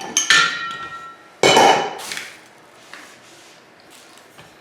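Office chair casters being pushed and knocked into the sockets of the star base: two loud knocks about a second apart, the first with a short metallic ring, then a few lighter knocks.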